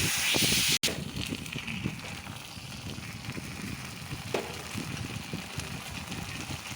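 Broccoli and mushrooms sizzling in a frying pan with the sauce just added. A loud hiss cuts off abruptly under a second in, and quieter crackling with occasional clicks follows.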